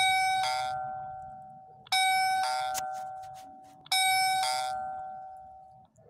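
Electronic two-note ding-dong doorbell chime, set off by pressing the call button of an EKEN V5 video doorbell. It rings three times about two seconds apart, each a higher note followed by a lower one that fades slowly.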